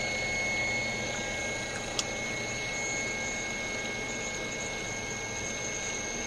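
Small DC motor of a servo trainer running steadily: an even whirring hum with a thin, steady high whine. There is a single sharp click about two seconds in.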